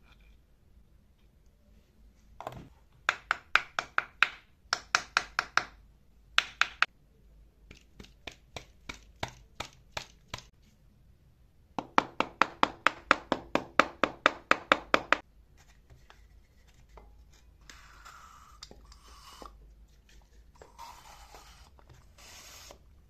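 Hand work on metal tool parts: quick runs of sharp scraping or tapping strokes, about six a second, in three bursts, then softer rubbing in the last few seconds.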